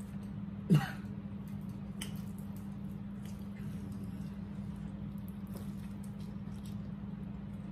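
Mukbang eating sounds: wet chewing and mouth noises from people eating fried chicken and rice, with scattered faint clicks. A short vocal sound with a falling pitch comes about a second in and is the loudest thing. A steady low hum runs underneath.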